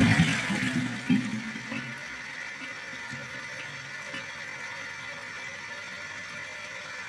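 Vintage high-tank toilet with a pull chain flushing: a loud rush of water with a knock about a second in tails off over the first two seconds. A steady, quieter hiss of running water follows.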